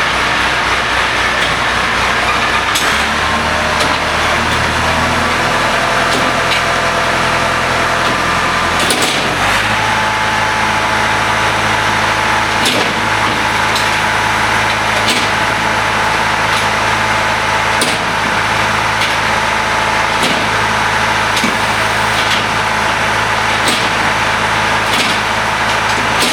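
Vermeer BC1230 wood chipper running. Its engine changes speed over the first several seconds, then settles to a steady run, with occasional sharp clicks.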